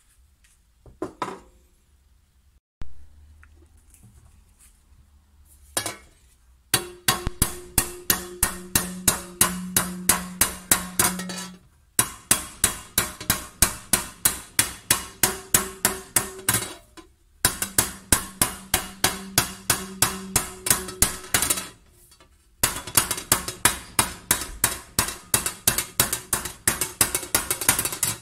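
Hammer blows on a copper tray being raised over a wooden stump: a few separate knocks, then fast, even strikes about four a second in runs of several seconds with short pauses. The copper rings on steady low notes under the blows.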